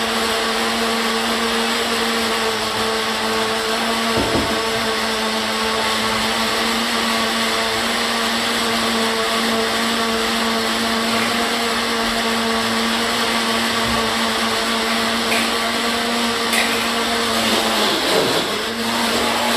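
Countertop blender running steadily at a constant motor pitch while blending a milk drink, switched off right at the end.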